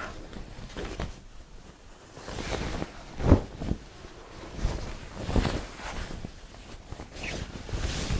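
Cotton gingham shirting fabric rustling and swishing as a large length of it is unfolded and shaken out, in several whooshing swells, the sharpest flap about three seconds in.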